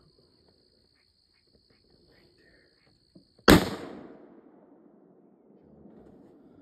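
A single .300 magnum rifle shot about three and a half seconds in, with an echo that dies away over about a second and a half.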